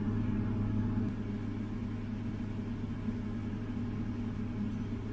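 Frigidaire 5,000 BTU subcompact air conditioner running on its fan alone, a steady low hum; the compressor has not come on yet.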